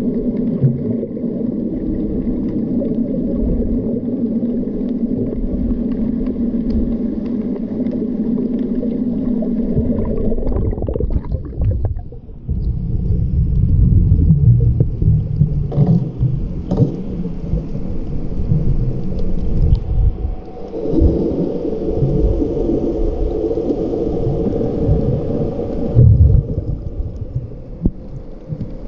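Muffled underwater rumble and water movement picked up by an action camera in its waterproof housing, with a steady low hum for the first ten seconds or so and uneven low surges and a few knocks after that.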